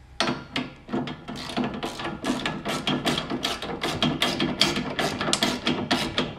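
Hand socket ratchet clicking in quick, rapid strokes as it tightens a side bar bracket bolt.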